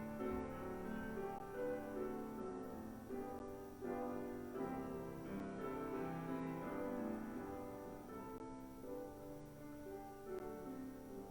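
Piano playing slow, sustained chords, growing quieter near the end.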